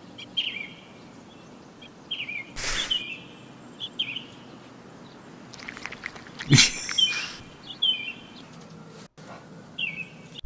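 Birdsong ambience from a cartoon soundtrack: short, high, repeated bird chirps every half second or so. A brief burst of noise comes about a quarter of the way in, and a louder flurry of sudden noisy sounds about two thirds of the way through.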